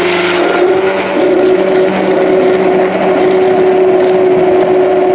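Electric hand blender running steadily with its shaft down in a glass of milk, at an even motor pitch, blending the cream into the milk.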